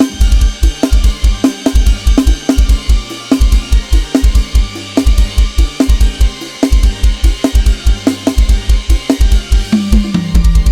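Up-tempo Thai lam sing groove played on the Addictive Drums 2 software drum kit: a fast, driving pattern of kick drum, snare, hi-hat and cymbals over a bass line. Near the end a low note slides down.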